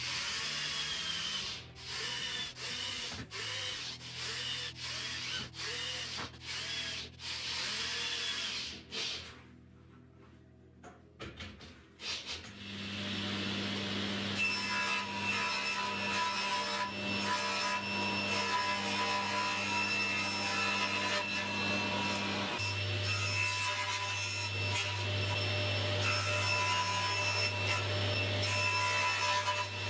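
A hand tool worked back and forth on wood in rhythmic strokes, about two a second, then a short pause. About twelve seconds in, an electric motor starts and runs steadily to the end, its hum shifting slightly about two-thirds of the way through.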